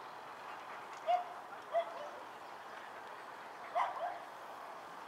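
A dog yipping: four short, high yips, the last two in quick succession, over a faint crowd murmur.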